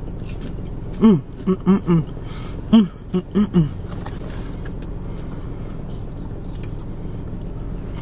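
A woman's short, pitched 'mm' sounds of enjoyment while chewing food, a quick run of them in the first half. Beneath, a steady low hum inside the car.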